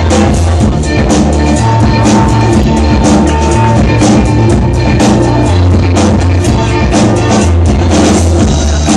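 Loud dance music with a heavy, steady drum beat and booming bass.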